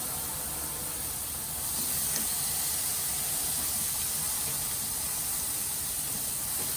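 Steaks sizzling on a hot grill: a steady hiss that grows a little louder about a second and a half in.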